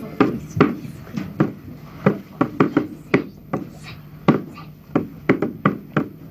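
Rope-tensioned toy side drum struck with two sticks: single sharp hits in an uneven beat, about three a second.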